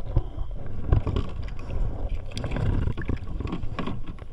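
Water sloshing and splashing against a fishing kayak, with scattered knocks and scrapes on the hull, as a hooked fish is brought up alongside.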